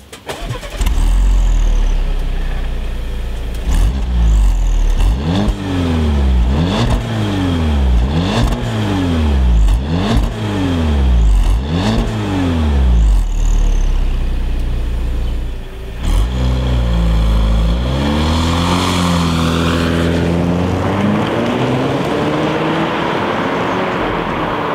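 2013 Audi A4's 1.8-litre turbo four-cylinder heard at its exhaust tips, revved at standstill in about six quick blips that rise and fall. About 16 seconds in the engine comes back under acceleration, its pitch held fairly steady and climbing slowly.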